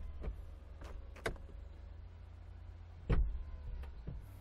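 Lexus LC 500 Convertible's powered soft top closing: a faint steady motor whine with several sharp mechanical clicks, then a heavy thump about three seconds in as the rear deck cover comes down and shuts, followed by a couple of lighter clicks.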